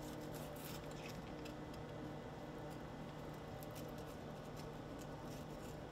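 Knife filleting a yellowtail snapper on a cutting board: faint, scattered small clicks and scrapes over a steady low hum.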